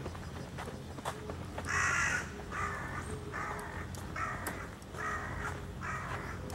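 A crow cawing repeatedly: about six harsh caws a little under a second apart, starting nearly two seconds in, the first one the loudest.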